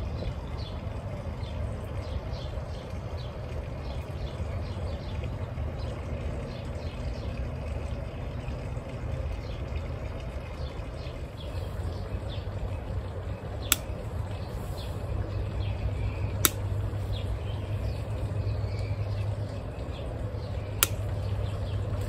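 Three sharp snips of hand pruning shears cutting plant stems, spaced a few seconds apart in the second half, over a steady low rumble with faint bird chirps.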